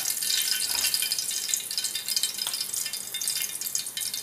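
Fish frying in hot oil: a steady crackling sizzle.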